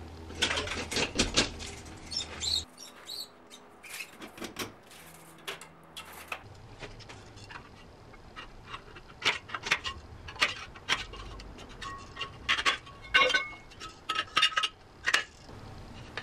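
Tin snips cutting a piece of metal drywall profile, with scattered clicks and clacks of the metal and a tape measure being handled. There are a few brief metallic rings near the end.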